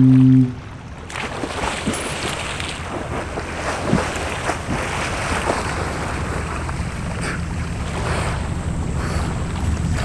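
Calm sea water lapping on a pebble shore, with wind noise on the microphone, as a swimmer wades in and dives; a slightly louder splash about four seconds in.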